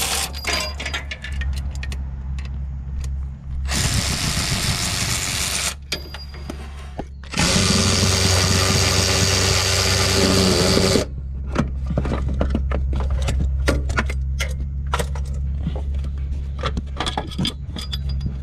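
Makita cordless ratchet running in two bursts, a shorter one then one of about three and a half seconds, its motor whining as it spins out the alternator's mounting bolts. Between and after the bursts come metal clinks and taps of the bolts and tools, over a steady low hum.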